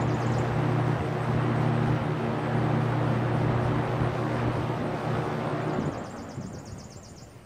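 A first-generation Lakewood box fan running: a steady motor hum under the rush of air from the blades, the fan well worn but working. About six seconds in, the hum stops and the air noise falls away as the fan is switched at its top control.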